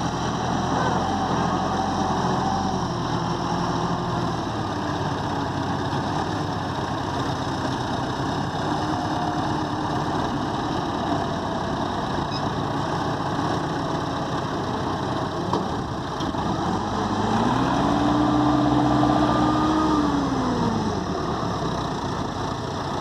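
Diesel engines of two farm tractors running under load as a Massey Ferguson 4275 tows a CBT 8240 out of a river. The engine note is steady at first, then revs up and back down about three-quarters of the way through, getting louder as it does.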